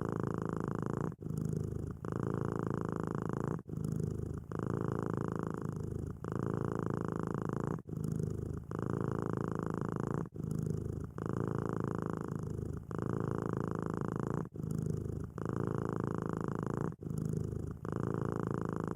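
Domestic cat purring steadily, the purr going in regular breath cycles with a short dip between each phase, about one in-and-out cycle every two and a half seconds.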